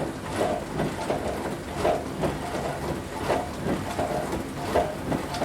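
Dishwasher running through its wash, water spraying and sloshing inside the tub in uneven surges about once a second over a low machine hum.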